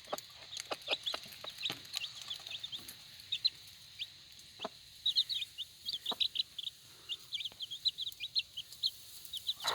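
Four- to five-day-old chicks peeping: many short, high, falling peeps, overlapping throughout, with a few faint clicks among them.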